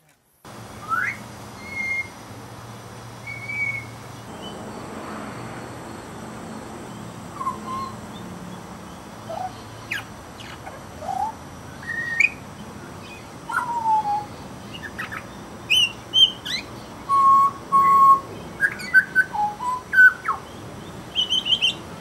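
Pied butcherbird singing: a string of separate clear whistled notes, some short and gliding, a few held a little longer, coming more often in the second half.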